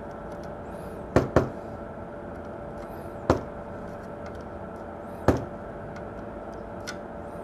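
About five sharp taps and clicks of metal soldering tools against a circuit board while RAM chip pins are touched up, two close together about a second in, the others a couple of seconds apart, over a steady electrical hum.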